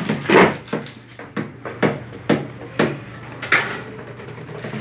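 Irregular clicks, taps and knocks of a utensil and a plastic bowl being handled on a counter during food preparation.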